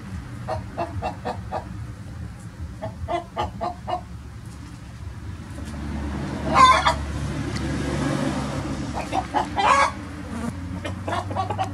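Chickens clucking in short, quick notes. About six and a half seconds in, a rooster crows loudly, and a second loud call comes near the ten-second mark. Clucking resumes after it.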